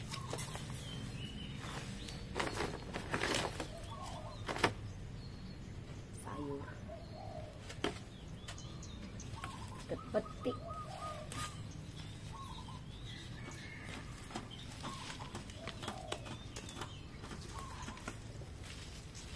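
Rustling and snapping of grass and leafy weeds being pulled and handled by hand, in irregular bursts.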